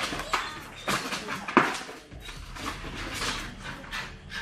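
Irregular clattering knocks and scuffs from a leashed dog leaping about in a plastic cone collar on a tiled floor, with one sharper knock a little past the middle.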